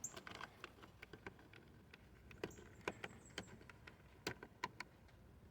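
Faint, scattered light clicks and taps of hand handling noise, a dozen or so irregular short ticks.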